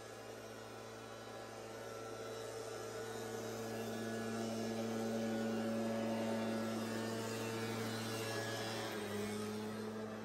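A steady low mechanical hum that grows louder in the middle and drops slightly in pitch near the end.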